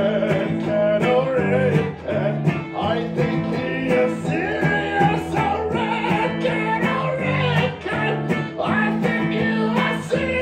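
Live band performance: a man singing into a microphone over a strummed hollow-body electric guitar and a steady low bass line.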